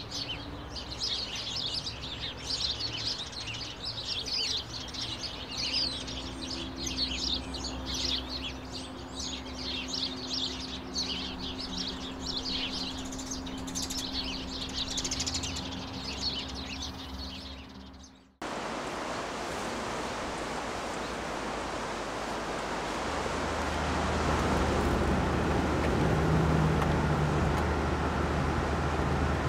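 Eurasian tree sparrows chirping rapidly, many short calls overlapping. About 18 seconds in this cuts off suddenly and gives way to a steady rushing noise with a low hum, which grows louder a few seconds later.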